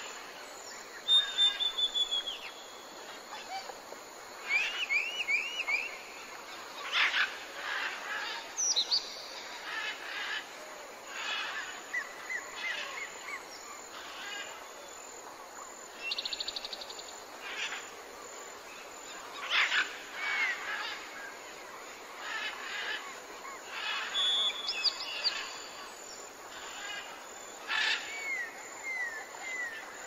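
Birdsong from several birds calling on and off: short series of falling whistled notes, sharp chirps, and a brief rapid trill partway through.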